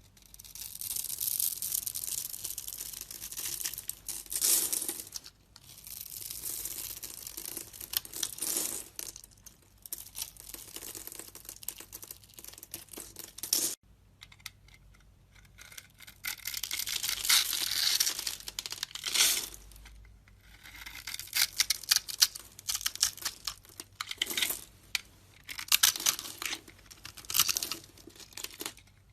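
A blade carving a bar of soap: crisp scraping, crunching cuts in runs of a few seconds with short pauses between, choppier with sharper snaps in the second half.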